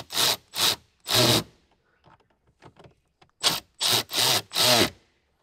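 Ratchet spanner tightening the bracket's bolts, its back-swings giving short rasps: a quick run in the first second and a half, a pause, then another run of four or five about three and a half seconds in.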